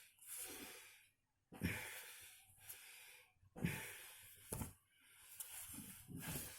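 A person breathing heavily: four forceful breaths, each a sudden hissing rush that fades over about a second, coming about every one and a half seconds.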